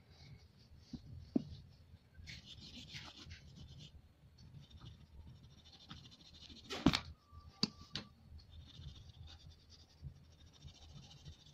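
Pastel crayon scratching across paper in short runs of strokes, with a couple of sharp knocks a little past halfway.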